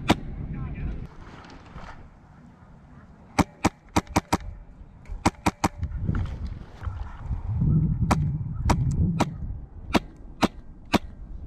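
Airsoft guns firing single shots: sharp snapping cracks in short strings, a quick burst of five a little over three seconds in, three more about two seconds later, then single shots roughly every half second, over a low rumble of movement.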